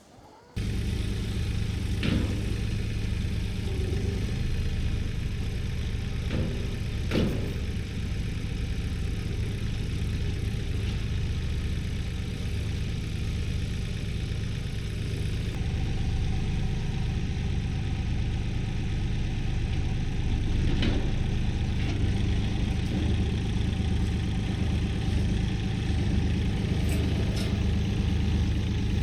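An engine running steadily at an even speed, with a few brief knocks on top.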